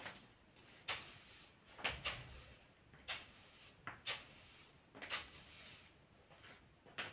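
A string of sharp, faint clicks or knocks, about one a second, each trailing a short hiss.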